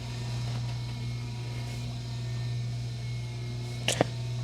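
Steady low hum, with a short sharp crack about four seconds in: a joint cracking under a chiropractic adjustment.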